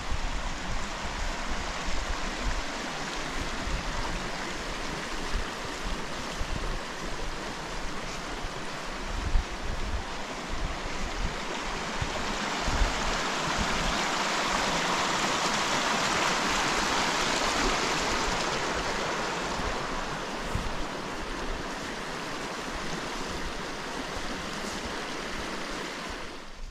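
Small mountain creek rushing and splashing over rocks, growing louder near the middle as the log footbridge over it is crossed, then easing off.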